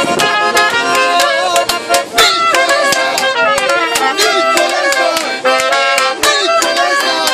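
Weltmeister piano accordion and trumpet playing a lively folk tune together, the accordion keeping a quick steady beat of bass and chords under the melody.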